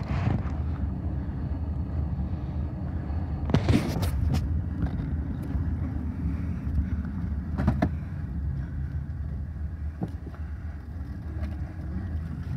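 Steady low rumble of a car driving, heard from inside the cabin, with a few short knocks or rattles, the loudest about four seconds in.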